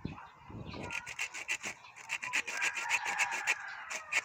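A small hacksaw-type blade sawing through a rooster's leg spur in quick back-and-forth strokes, several a second, in short runs with brief pauses.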